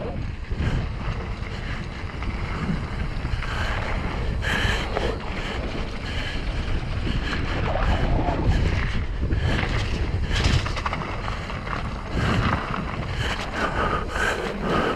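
Wind buffeting the camera microphone during a fast mountain bike descent, a steady low rumble with the bike's tyres and frame rattling over dirt in scattered clicks.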